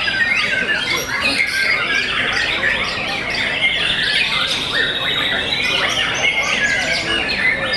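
A dense chorus of many caged white-rumped shamas (murai batu) singing at once, overlapping whistles, trills and quick phrases with no break.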